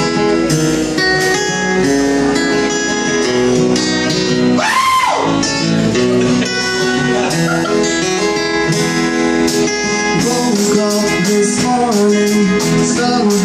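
Live acoustic band playing a song: strummed acoustic guitar over electric bass, with a short tone that rises and falls about five seconds in. A man's voice starts singing in the last few seconds.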